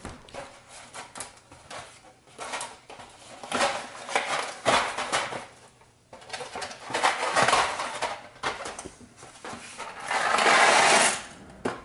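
Kitchen pots and dishes being handled, with scattered clatters and knocks. A louder noisy rush lasting about a second comes near the end.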